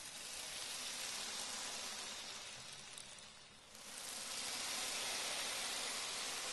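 Gentle sea waves washing ashore: a soft, even hiss that ebbs away about three and a half seconds in and swells back with the next wash.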